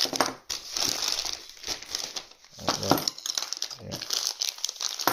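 Plastic packaging bags crinkling in irregular bursts as they are handled; the bags hold radiator valves and pipe fittings.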